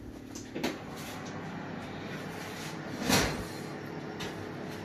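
Oven door opened and a tray of baked brownie taken out. There is a light knock about half a second in and a louder knock about three seconds in, over a steady hum.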